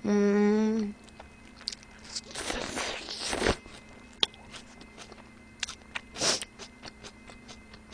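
A short hummed note, then a bite into a soft burger in a foil wrapper and chewing with small mouth clicks. The crinkling of the foil wrapper comes once about two and a half seconds in and again briefly near the end.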